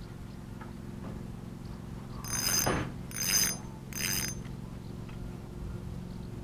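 A fly reel's click ratchet buzzing in three short bursts, a little over a second apart, while a small hooked chub is played in to the bank.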